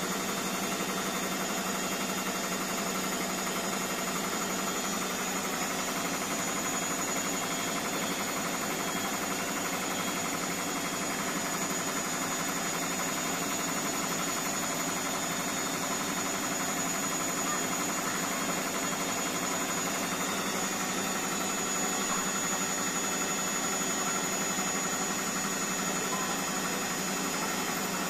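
Indesit BWSE 61051 washing machine on its spin cycle, the drum turning at a steady speed with an even hum and a steady high whine, running on freshly replaced drum bearings.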